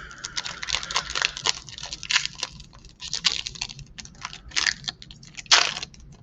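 Plastic packaging crinkling and crackling as it is handled and pulled open, in quick irregular runs with a sharper crackle near the end.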